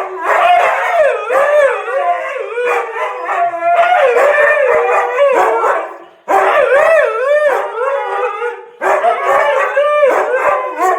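A dog howling in long, wavering howls, in three bouts with brief pauses about six and nine seconds in.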